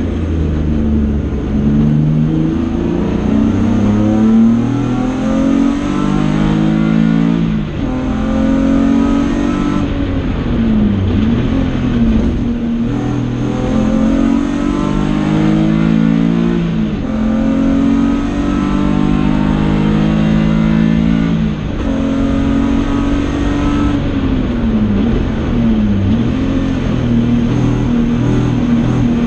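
BMW E30 race car's 2.5-litre engine heard from inside the stripped cabin while lapping a circuit, its note climbing under acceleration and dropping sharply again and again as the driver shifts gear and lifts for corners.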